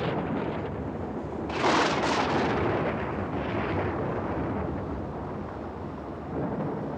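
Thunder rumbling, with a louder crash about a second and a half in that rolls on and slowly fades.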